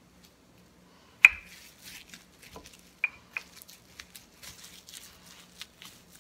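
Wooden rolling pin rolling chilled butter between sheets of cling film on a granite countertop: a sharp knock about a second in, then crinkling of the plastic film and scattered taps.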